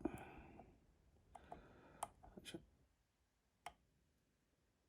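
A dimple pick working the pins inside a Brisant Ultion dimple lock cylinder: faint scraping of the pick in the keyway with a few sharp metallic clicks, as the lock is brought close to opening.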